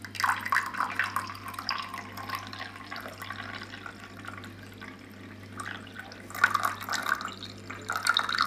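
Warm lemongrass drink being poured into a glass: liquid splashing and trickling, thinning out in the middle and picking up again near the end, with one brief knock about six and a half seconds in.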